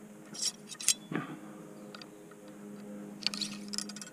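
Small clicks, scrapes and rattles of a muzzleloader rifle being handled at its muzzle: a few sharp clicks about half a second in, a short scrape just after a second, and a quick run of crisp clicks near the end, over a faint steady hum.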